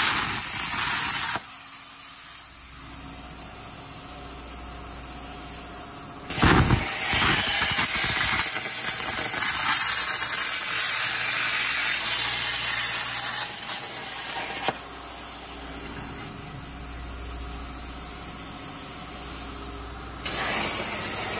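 CNC plasma cutter torch cutting 3/16-inch steel plate at 65 amps, a loud steady hiss while the arc is on. The cut in progress ends about a second in, a second cut runs from about six to fifteen seconds, and a third starts near the end. Between cuts only a quieter steady hum remains.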